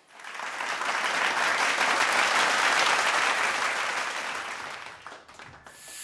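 Audience applauding: the clapping swells within the first second, holds, then fades and cuts off about five seconds in.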